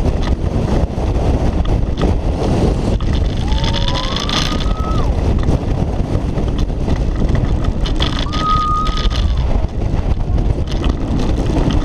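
Mack Rides launched roller coaster train running at speed: heavy wind rushing over the mounted camera and the wheels rumbling on the steel track. Riders let out two long whoops, one about four seconds in and one about eight seconds in.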